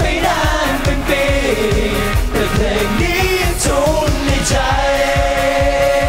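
Thai pop song performed by a boy group: singing over a band with a steady drum beat, with a held, steady note from a little past the middle.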